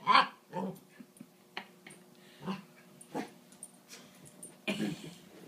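A dog's short whining barks and yips during play, about six spaced out, the loudest right at the start.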